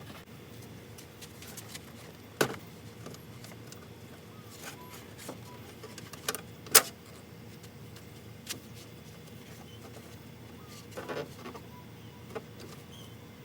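Scattered light metallic clicks and knocks of hand work on a car door's latch assembly as clips and screws are worked loose, the loudest a sharp knock about seven seconds in.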